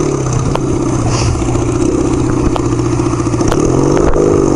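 A 1975 Kawasaki KZ400 parallel-twin motorcycle engine running steadily, its pitch rising slightly near the start and near the end, with a few sharp clicks.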